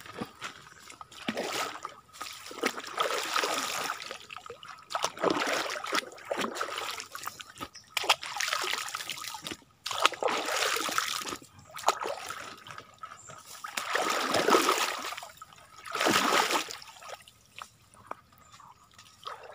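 Feet wading through a shallow, muddy creek: a run of sloshing splashes, about six in all, each a second or two long, dying away near the end. A faint steady high tone sits underneath.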